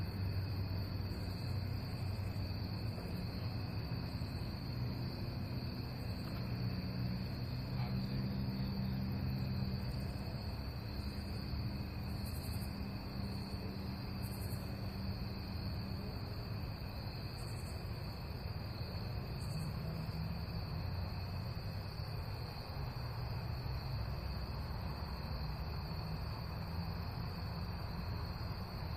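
Night-time insect chorus, a steady high trill, over a low hum that slowly wavers in pitch.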